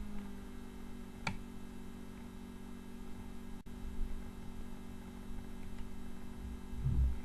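Steady electrical mains hum, with a single sharp click about a second in and a dull knock near the end, from small parts of a Tippmann A5 paintball marker being handled as its top screw is tightened.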